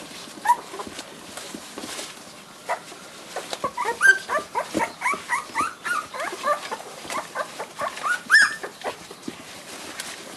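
A litter of young Kishu Ken puppies squeaking and whimpering in many short, high cries as they crowd their mother to nurse, with scuffling on newspaper bedding. The cries come thickest from a few seconds in until near the end.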